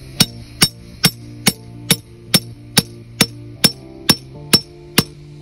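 Claw hammer striking a metal pin in an even rhythm, about two blows a second, each with a short metallic ring, driving the pin down through plastic drainage cell into the ground.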